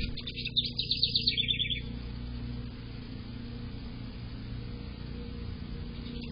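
House wren singing: one rapid, bubbly song of quick notes that steps down in pitch in two stages and lasts under two seconds, with the next song starting right at the end. A steady low hum runs beneath it.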